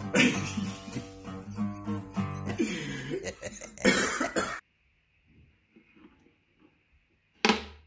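Intro music with strummed acoustic guitar, which stops abruptly about four and a half seconds in. After a few quiet seconds of faint handling comes a single sharp snap near the end, as a blade cuts through a ukulele string at the bridge.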